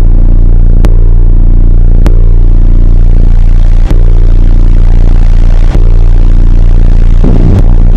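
Harsh noise music: a very loud, distorted low drone that holds steady, cut by five sharp clicks spaced about every second and a half to two seconds.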